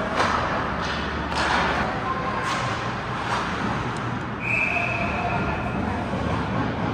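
Ice hockey play in an arena: sharp clacks of sticks and puck against the ice and boards, about five in the first few seconds, over a steady echoing hall noise. A single steady high tone is held for about a second roughly midway.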